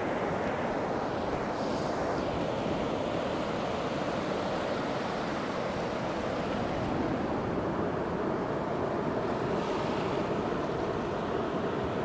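Sea surf: small waves breaking offshore and washing up over wet sand at the water's edge, a steady wash that swells a little now and then.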